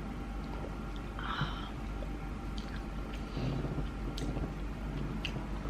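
Soft chewing of sushi close to the microphone, with a few faint clicks, over a steady low hum.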